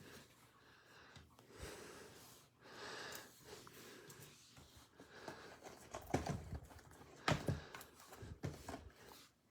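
Breathing and handling noise close to the microphone: several short breath-like hisses, then a few sharp knocks and clicks about six to eight seconds in.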